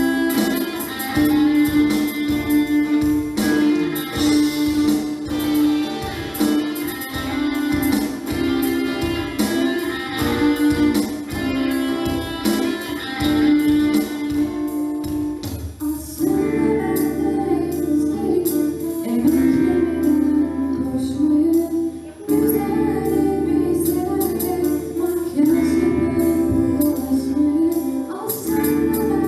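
School orchestra playing a song, guitars over a steady beat. About halfway through the beat thins out and held low notes carry a wavering melody.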